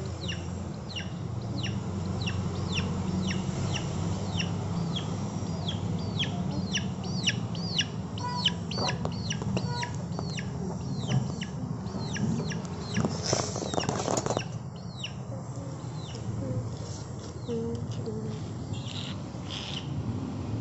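Young chickens peeping: a run of short, high, downward-sliding peeps about two a second, then fewer and fainter ones. A loud burst of wing flapping comes a little past halfway.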